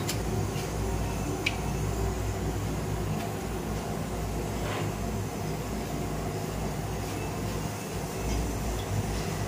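Gas stove burner running under a tawa of rotis: a steady low rumble, with a few light clicks as the roti is handled.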